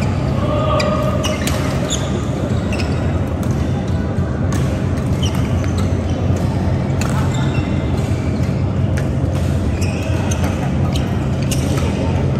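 Badminton rally: rackets striking a shuttlecock with sharp cracks at irregular intervals, about one a second, over a steady low hum and background voices in the hall.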